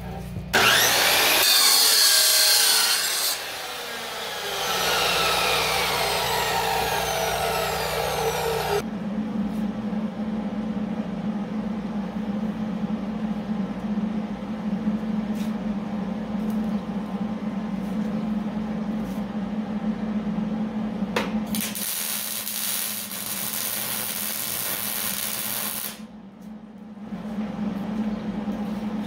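Abrasive chop saw starting up and cutting steel bar, then coasting down with a falling whine. After that a steady low hum runs on, with a few clicks. It is broken for about four seconds by a loud hissing crackle.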